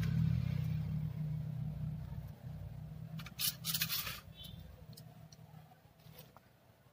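A short scraping rasp, about a second long, a little over three seconds in, as parts of a laptop keyboard assembly are handled. Under it, a low rumble fades away over the first few seconds.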